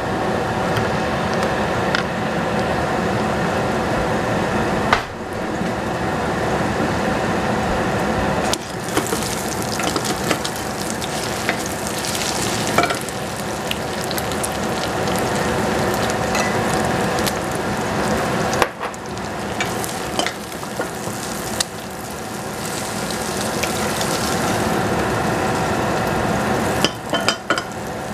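Beaten egg and green onion sizzling as they fry in a stainless-steel saucepan, stirred with a wooden spatula. A steady sizzle runs throughout, with scattered knocks of the spatula against the pan.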